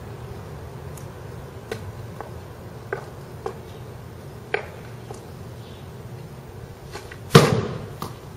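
Hockey stick blade tapping a ball on a canvas tarp laid over pavement, a series of light clicks about once a second, then one loud smack of a shot about seven seconds in.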